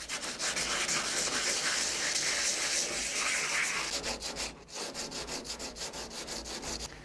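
Sandpaper rubbed by hand over a carbon/Kevlar composite kayak hull in rapid back-and-forth strokes, abrading the surface to key it for bonding a repair patch. The strokes pause briefly about four and a half seconds in, then carry on.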